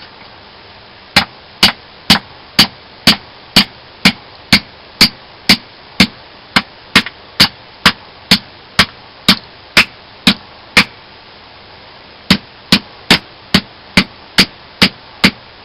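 A knife blade chopping hard into a piece of wood: a steady run of sharp blows about two a second, with a short pause near the end before a few more.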